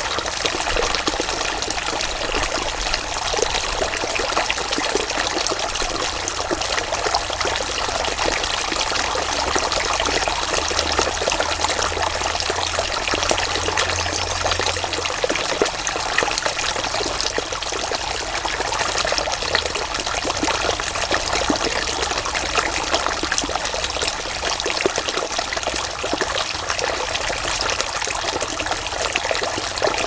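Shallow stream running over rocks and tree roots, a steady, continuous splashing rush of water.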